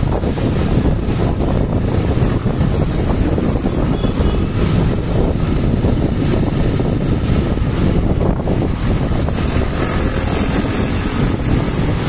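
Steady wind noise on the microphone of a moving motorcycle, with the bike's engine running underneath.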